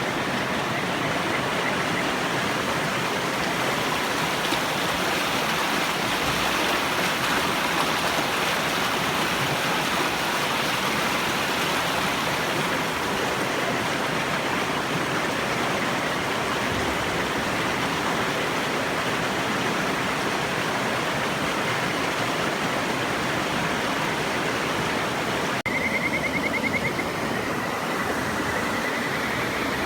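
Steady rush of a river. Near the end a Kajika frog (Buergeria buergeri) starts a high, trilled whistle call, followed by a second that rises slightly.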